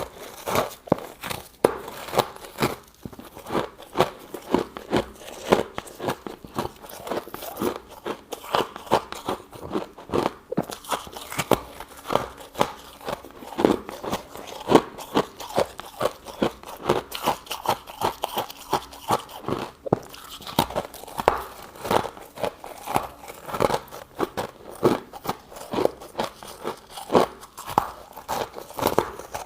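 Close-miked crunching and chewing of powdery freezer frost, in quick irregular bites, several crunches a second.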